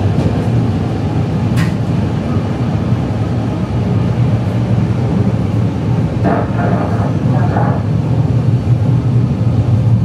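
Steady running rumble heard inside a moving ЭП2Д electric commuter train car, with one short click a little over a second in.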